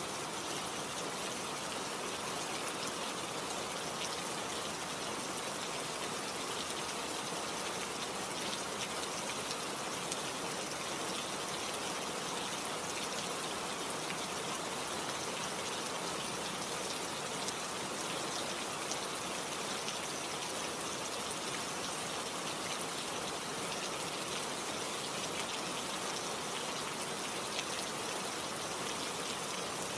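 Steady rain falling: an even, unbroken hiss of many small drops landing.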